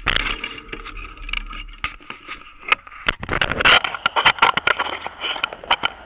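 Rolling noise, rattling and scraping picked up by a low-mounted camera riding along a paved bike lane, with irregular knocks that grow denser and louder from about three seconds in.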